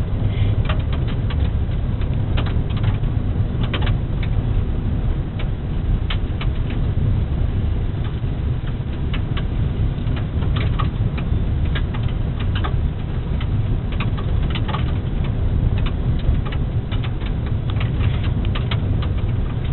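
Car driving on a gravel road, heard from inside the cabin: a steady low rumble of tyres and engine, with scattered clicks and pings from loose gravel.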